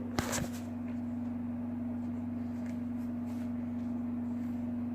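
A steady low hum, with a brief sharp handling noise just after the start.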